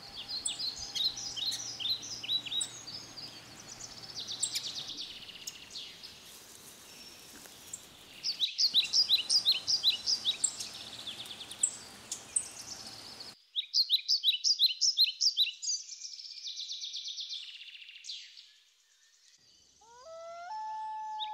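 Songbirds singing: repeated quick songs of short high notes, one after another, over a faint steady hiss that cuts out about two-thirds of the way through. Lower, drawn-out tones that waver in pitch come in near the end.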